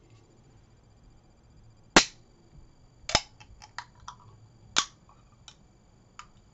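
Aluminium ring-pull energy-drink can handled and opened: a string of sharp metallic clicks and pops, the loudest about two seconds in, with others following over the next few seconds.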